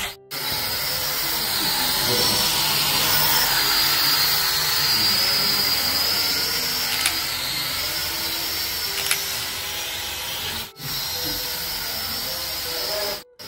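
Small toy quadcopter drone's propellers and electric motors running as it flies and hovers, a high buzzing whine that wavers in pitch. It cuts out briefly twice, near the start and about three-quarters of the way through.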